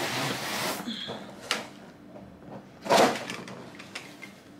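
A cardboard box being opened and the packaging inside handled: rustling in the first second, a sharp crackle about a second and a half in, and a louder rustle and knock about three seconds in as the tripod's fabric carrying bag is pulled out.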